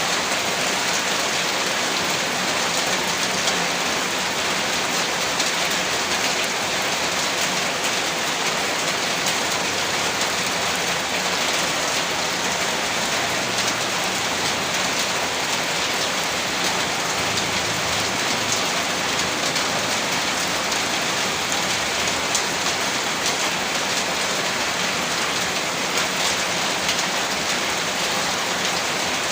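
Heavy rain falling steadily, a dense even hiss of drops hitting a surface.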